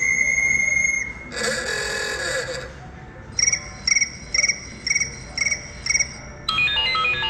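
iPhone 14 Pro Max speaker playing ringtone previews in quick succession. A steady electronic tone cuts off about a second in and a short noisy burst follows. Then comes a cricket-chirp ringtone, about seven chirps at roughly two a second, and a melodic ringtone begins near the end.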